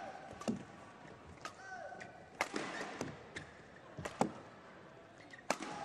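Badminton rally in an indoor arena: sharp rackets-on-shuttlecock hits at irregular intervals, the loudest around the middle, with short squeaks of shoes on the court floor.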